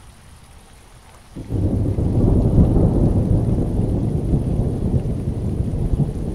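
Rain falling steadily on wet pavement, with a low rumble of thunder that comes in suddenly about a second and a half in and rolls on, louder than the rain.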